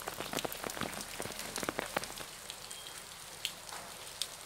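Wet snow and meltwater drops pattering on surfaces: a quick run of light ticks that thins out after about two seconds.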